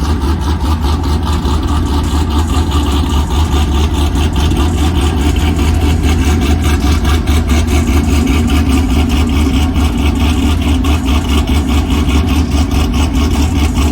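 Race car engine idling loudly and steadily, with a rapid, even pulse.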